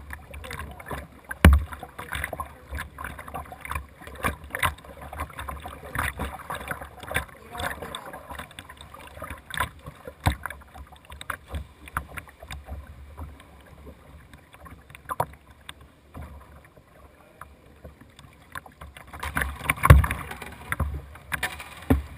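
Kayak paddle strokes splashing and dripping in pool water, a steady run of short splashes, with a sharp knock about a second and a half in and another, the loudest, about twenty seconds in.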